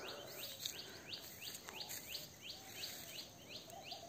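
A bird's rapid series of short, high chirps, each falling in pitch, repeating about four times a second, faint.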